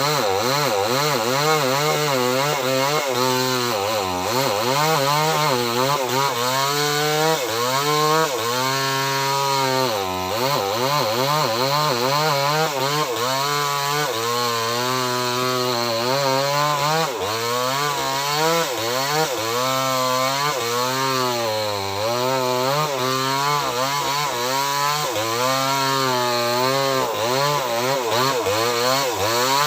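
Small chainsaw cutting into a large tree trunk, its engine running without pause, the pitch rising and dipping over and over, about every second or two, as it works through the wood.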